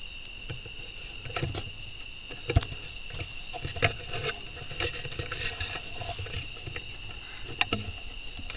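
Steady trilling of night insects, with scattered irregular clicks and rustles close by, the loudest a sharp click about two and a half seconds in.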